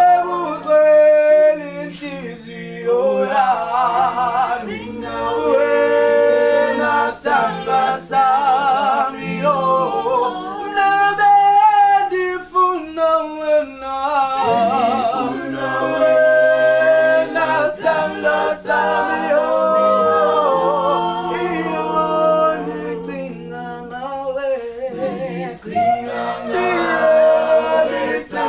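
A mixed group of men and women singing a cappella in close harmony, low voices holding a steady bass line under higher voices that waver with vibrato.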